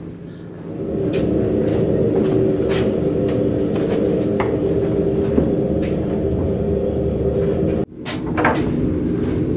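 A steady mechanical rumble with a droning hum of several held tones and a few sharp clicks; it cuts out abruptly for a moment near the end and then resumes.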